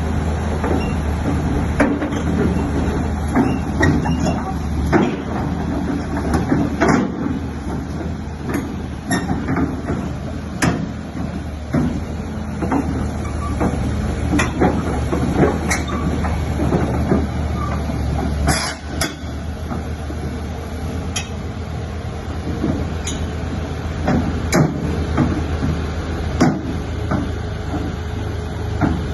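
Heavy diesel engine running steadily, overlaid with frequent sharp metallic clanks and knocks, typical of a SANY SY215C excavator moving onto a steel self-loader trailer.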